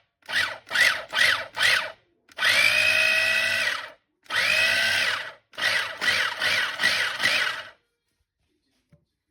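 Kenwood CH180B mini food chopper's 300 W motor whining in on-off bursts: four quick pulses, two longer runs of about a second and a half, then four more quick pulses. Its pitch rises as it spins up and drops as it stops.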